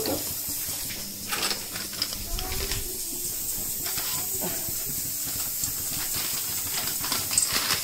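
A steady hiss from the gas burner under a kadai of heating oil, with a few short crinkles and rustles as a plastic packet of gram flour is handled over the batter bowl.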